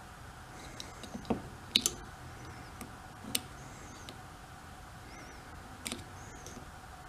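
Multimeter test probes clicking and scraping against the metal terminals of an ignition coil pack: a few sharp separate ticks spread over several seconds, the loudest a little under two seconds in.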